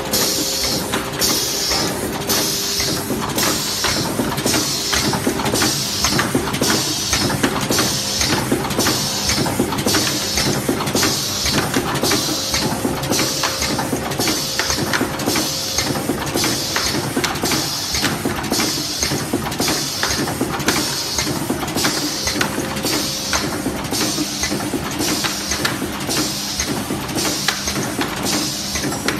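Automatic screen printing machine for marker pens running continuously: a steady cycle of mechanical clicks and short hisses repeats evenly about once a second, over a steady machine hum.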